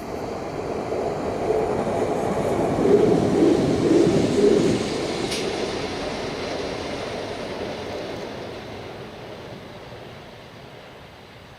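Freight train hauled by an FS E652 electric locomotive passing by. Its rumble and wheel noise build up, are loudest about three to five seconds in, then fade away steadily.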